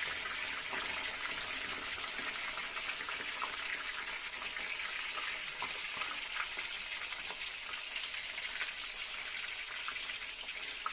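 Chicken kebab pieces deep-frying in hot oil in a steel kadai with curry leaves and green chillies: a steady sizzle with scattered small crackles and pops.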